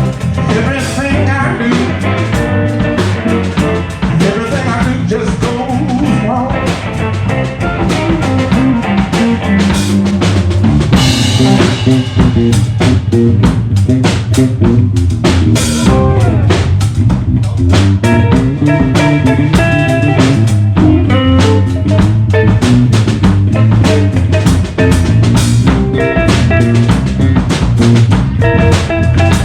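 Live electric blues band playing an instrumental break with no vocals: drum kit keeping a steady beat under electric bass and guitar, with the bass notes standing out loudly.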